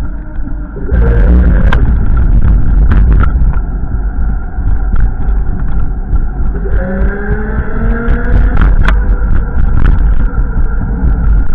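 Strong wind buffeting the microphone in a loud, steady low rumble, with a few sharp knocks. About seven seconds in, a rising tone joins it for a second or two.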